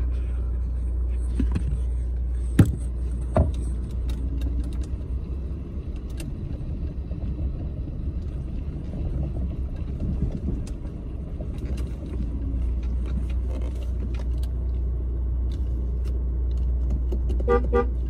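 Steady low rumble of a vehicle's engine and tyres heard from inside the cabin while driving slowly on a dirt trail, with two sharp knocks about two and a half and three and a half seconds in. A short pulsing tone sounds near the end.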